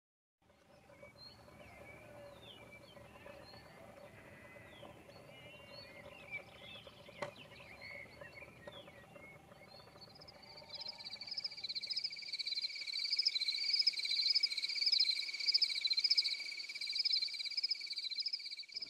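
Evening wildlife ambience: scattered short bird chirps, then about ten seconds in a continuous, rapidly pulsing high trill sets in and becomes the loudest sound, like a night insect or frog chorus.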